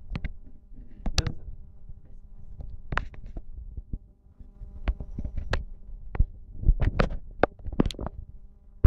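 Scattered, irregular knocks and bumps, some in quick clusters, over a faint steady hum.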